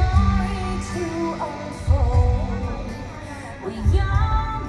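Show music: a song with a singing voice over a deep bass hit about every two seconds.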